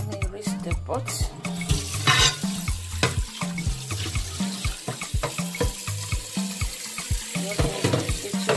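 Kitchen tap running water into a steel pot in a sink, over background music with a steady bass beat.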